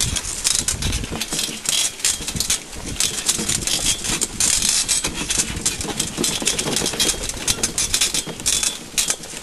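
Wheelchair pony carriage rattling and jolting as the pony pulls it along a rough, leaf-strewn woodland track, with a dense, irregular run of clicks and knocks over a low rumble.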